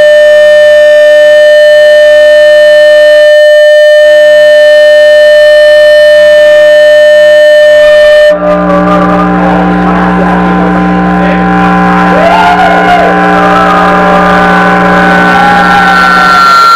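Loud live electronic drone played through a PA: a steady buzzy tone held for about eight seconds with a brief dropout midway, then switching abruptly to a low hum with wavering, warbling higher tones over it.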